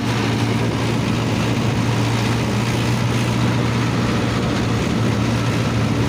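Mahindra 585 XP Plus tractor's four-cylinder diesel engine running steadily as the tractor drives along the road, heard from the driver's seat.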